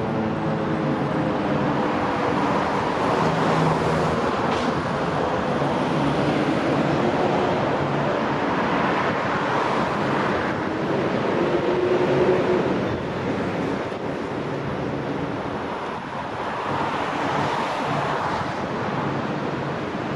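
Steady city road traffic, cars and engines passing on a busy street. In the first second the last of a Federal Signal 2001-130 siren's growl is still winding down, its falling pitch fading out under the traffic.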